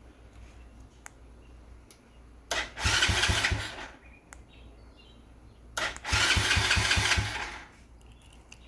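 Electric starter of a 125cc single-cylinder CG125-clone motorcycle engine, worked by a remote-start alarm, cranking twice for about a second and a half each time. The engine does not catch.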